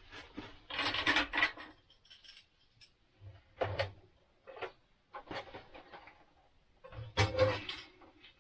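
Several bursts of clattering and rubbing as air-conditioner parts and hardware are handled and moved around, loudest about a second in and again near the end.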